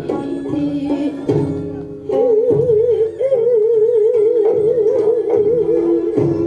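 Korean traditional music accompanying a hallyangmu dance: a melody instrument holds a long note with a wide, wavering vibrato from about two seconds in, over a steady lower note and low beats about once a second.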